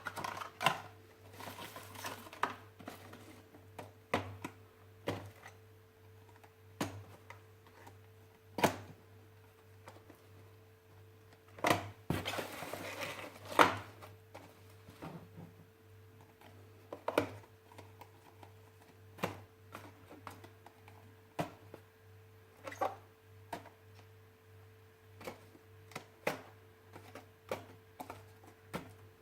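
Packaging and objects being handled: scattered light clicks and knocks, with a longer crinkling, rustling stretch about halfway through, over a faint steady electrical hum.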